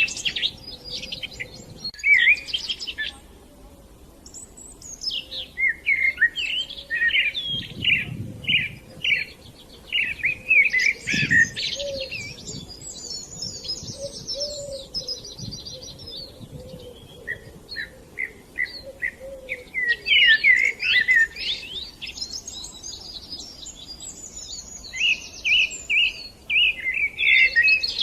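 Several songbirds chirping and singing in a busy, overlapping chorus of short high chirps and quick trills, with a couple of brief lulls.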